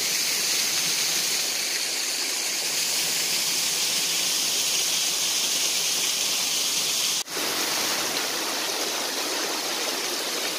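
Steady rush of a waterfall cascading down over rocks. A brief cut about seven seconds in, after which the rush sounds a little deeper and less hissy.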